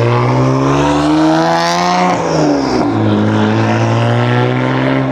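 BMW 335i's turbocharged straight-six running through an aftermarket VRSF exhaust. The engine note rises for about two seconds, drops sharply, then holds a steady note.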